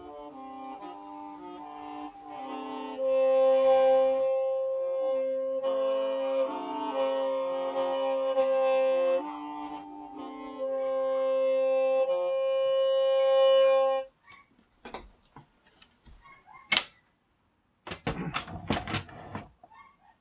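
Hmong qeej, a bamboo free-reed mouth organ, playing several notes at once over a long held tone, then stopping abruptly about two-thirds of the way through. Scattered clicks follow, then a short burst of rustling noise near the end.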